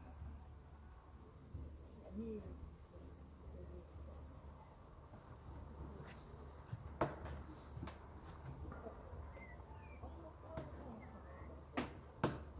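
Faint background ambience: a steady low hum with a few small bird-like chirps, and a handful of sharp clicks, the loudest about seven seconds in and two more near the end.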